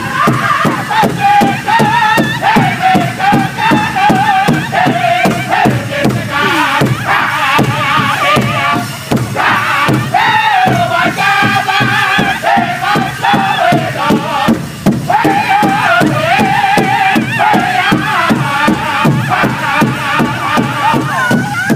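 A powwow drum group singing together around a big drum: several men's voices, high and wavering, over a steady beat of drumsticks striking the shared drum.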